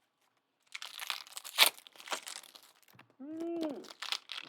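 Trading card pack wrappers crinkling and tearing as packs are opened and handled, in a few separate rustling bursts.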